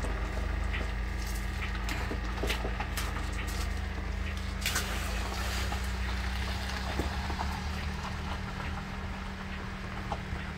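Net and handling clatter on a gravel bank, then from about halfway through a large grouper splashing and thrashing at the water's surface as it is lowered into a keep net, over a steady low rumble.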